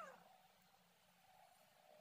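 Near silence with a faint steady hum, after the tail of a falling cat meow trails off at the very start.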